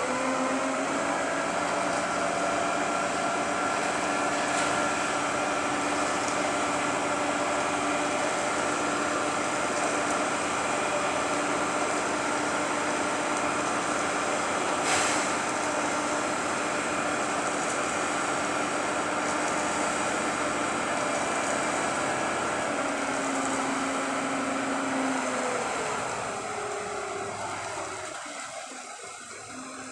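Engine of a construction crane running at raised revs with a steady note, then winding down about 25 seconds in and fading out. A single sharp click is heard about halfway through.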